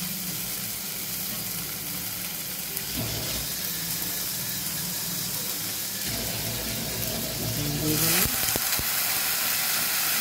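Sliced onions and chilli masala sizzling steadily in hot oil in a kadai. About eight seconds in, liquid is poured into the hot pan and the sizzle jumps to a louder hiss.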